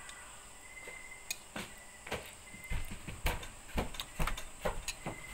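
Person sipping and gulping hot vegetable broth straight from a bowl held to the lips: a run of about nine short slurps and swallows, roughly two a second, starting about a second and a half in.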